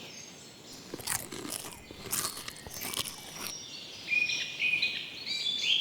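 A few sharp crunching, scraping noises, followed by short bird chirps.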